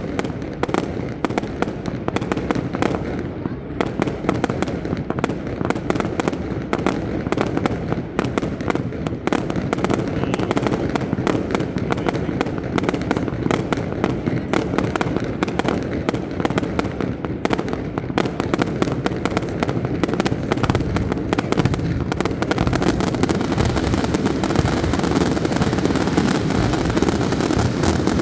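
Fireworks display: a dense, unbroken run of bangs and crackles that grows thicker and louder about three-quarters of the way in.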